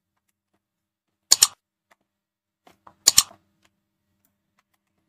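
Two sharp mouse-click sound effects, each a quick double click, about a second and a half apart, with faint ticks between them.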